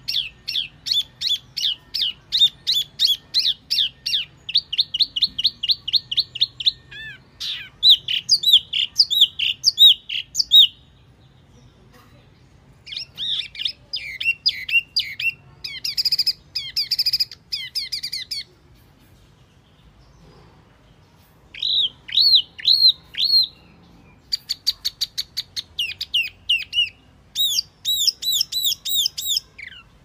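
Recorded song of the wambi mini bird, played as a lure call. Phrases of rapid, repeated high chirped notes, several a second, are broken by short pauses of one to three seconds.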